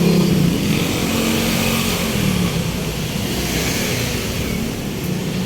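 A motor vehicle's engine running steadily, with a low hum under general road noise.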